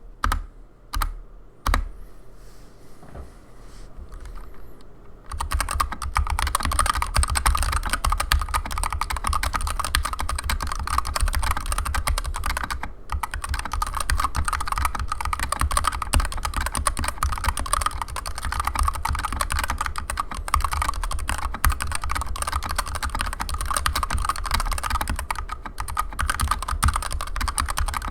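Typing on a Skyloong GK61X 60% hot-swap mechanical keyboard fitted with stock Zeal Turquoise Tealio linear switches: a few single keystrokes, then continuous fast typing from about five seconds in.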